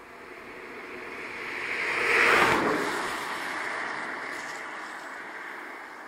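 A vehicle passing by: a rushing noise that swells to a peak about two and a half seconds in, then fades slowly.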